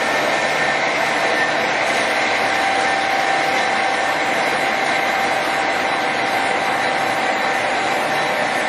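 Axelson Model 16 heavy-duty engine lathe running steadily under its 15 hp main drive, the geared headstock giving an even whir with a few steady whine tones.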